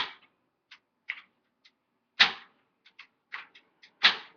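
Gas stove burner being lit: a series of sharp igniter clicks, a few loud ones with short ringing tails and fainter ticks between them, spaced about a second apart.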